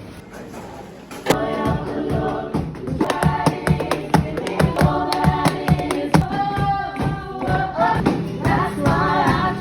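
A song with several voices singing over a regular beat, coming in loudly about a second in.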